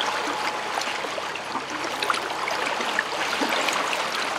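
Sea water splashing and rushing against the hull as a paravane stabilizer fish is drawn up to the surface on its chain, with scattered light ticks through the splashing.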